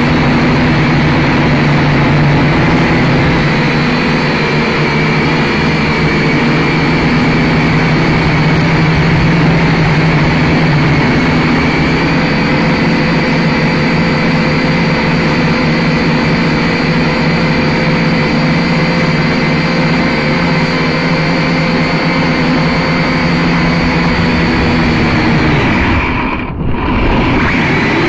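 Small camera drone's electric motors and propellers whining steadily in flight: a loud buzz with several steady tones. Near the end the whine briefly drops in level and pitch, then picks back up.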